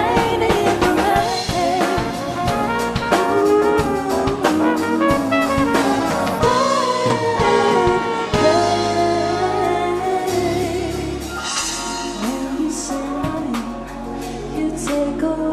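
Live band playing: a woman singing lead with a second female voice, over a brass horn and a drum kit struck steadily throughout.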